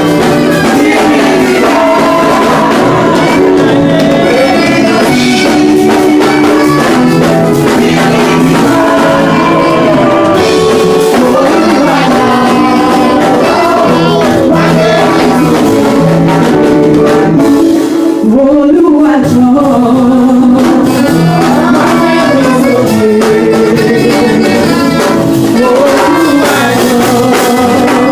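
Church music: singing over instrumental accompaniment, continuous and loud.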